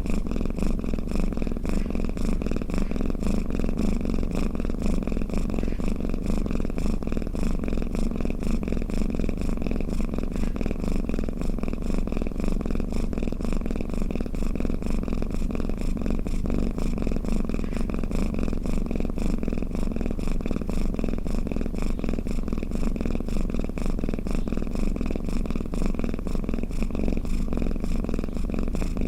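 Domestic cat purring steadily, a continuous, even low pulsing with no breaks.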